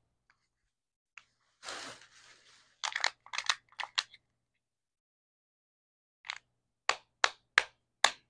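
Crinkling and crisp clicking of a Kinder Joy plastic egg shell and its foil seal being handled: a short rustle about two seconds in, a few sharp clicks just after, then a row of evenly spaced clicks near the end, about three a second.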